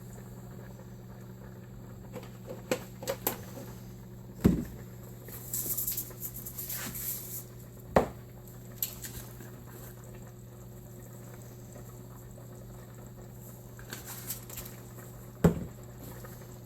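Light kitchen clatter: three sharp knocks and some soft rustling over a steady low hum.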